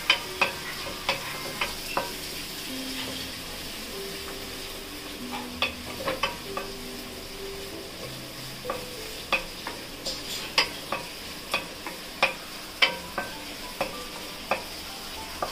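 Chopped onions, curry leaves and dried red chillies frying in oil in a metal kadai with a steady sizzle, as the onions brown. A wooden spatula stirs them, knocking and scraping against the pan every half second to second.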